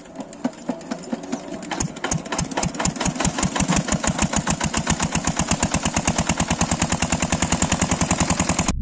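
Small engine starting up and running, its firing pulses speeding up from a few a second to an even beat of about ten a second, then cutting off suddenly near the end.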